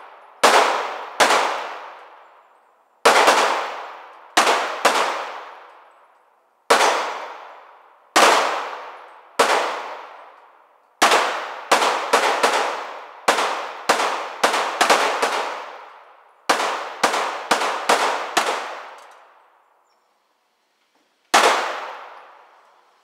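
Smith & Wesson M&P 9mm semi-automatic pistol fired about two dozen times inside an indoor range, each shot sharp with a long echoing decay off the range walls. Single shots a second or more apart at first, then quicker strings of shots in the middle, and one last shot after a pause near the end.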